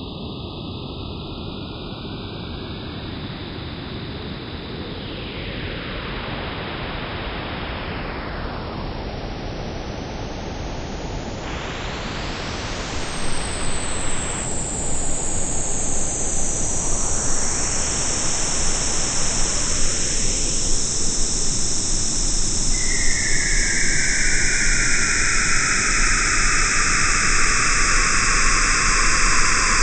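Synthesized alien-spaceship sound effect: a continuous whooshing noise whose pitch bands sweep down and back up, growing louder about halfway through and turning into a bright, steady hiss.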